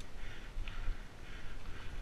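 Mountain bike rolling over a dirt trail, with a low rumble of tyres and frame rattle. The rear freehub ratchet buzzes in short bursts about twice a second as the rider coasts between pedal strokes.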